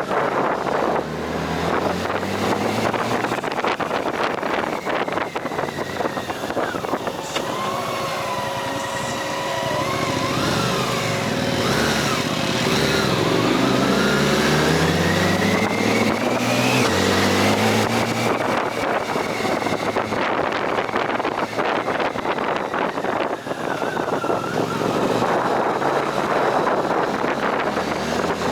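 Motorcycle engine running on the move, its pitch climbing and dropping again and again as the revs change, under wind noise on the microphone.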